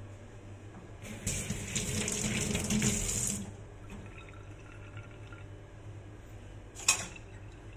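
Kitchen tap running over a stainless steel sink for about two seconds, then shut off. A single short knock comes near the end.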